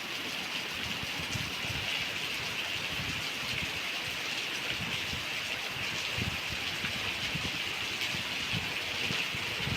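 Light rain (drizzle) falling steadily: an even hiss of fine drops with a soft irregular patter.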